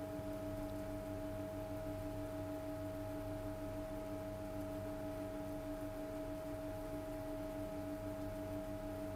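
A steady hum made of several held tones that do not change in pitch or level.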